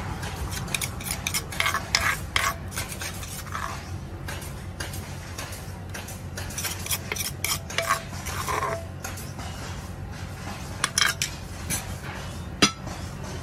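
A spoon scraping and clicking against a clay mortar and a plate as papaya salad is scooped out and served: irregular scrapes and light knocks, with one sharp knock near the end.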